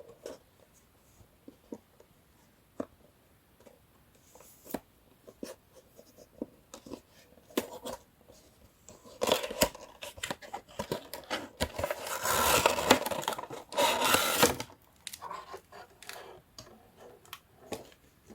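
Action figure packaging being opened: scattered clicks and taps of cardboard and plastic, then, about nine seconds in, a loud stretch of about five seconds of tearing and rustling as the packaging is pulled apart, followed by a few more taps.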